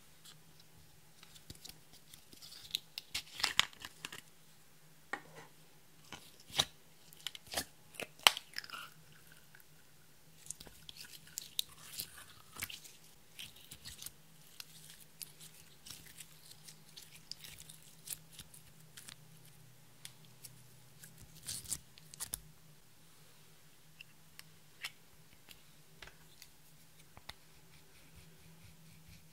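Sticky slime being squeezed and stretched by hand, with irregular small crackles, clicks and pops, loudest a few seconds in. Near the end, a plastic spatula scrapes pressed eyeshadow out of its pan.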